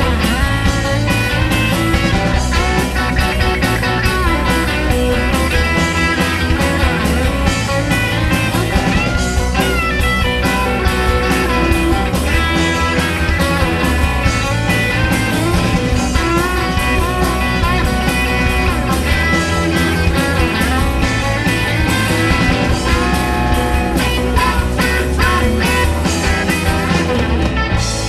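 Live rock band playing an instrumental passage without vocals: electric guitar lines with bent notes over bass guitar and a steady drum beat. Right at the end the drumming stops and held notes ring on.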